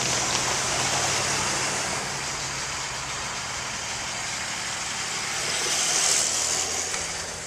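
Road vehicles driving over a railroad grade crossing, their tyre and engine noise swelling as a pickup truck passes about six seconds in, over a low steady engine drone.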